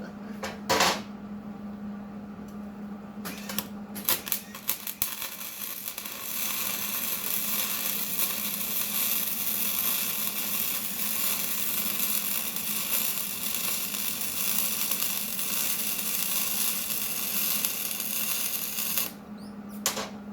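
A few metal clicks and knocks of tools and parts being handled, then a power tool running steadily for about thirteen seconds before it cuts off abruptly.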